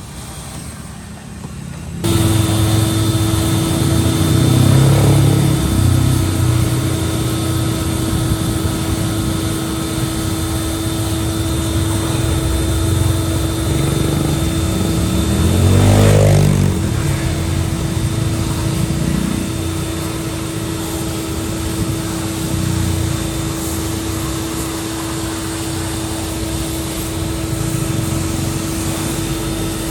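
A steady mechanical hum over low engine rumble. A vehicle passes about halfway through, its pitch rising and then falling.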